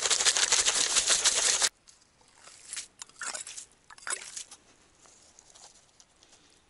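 Plastic container of dry groundbait shaken hard, a dense rattle that stops abruptly about two seconds in. After it come a few soft rustles and crunches as a hand works in the wet snow and slush at the ice hole.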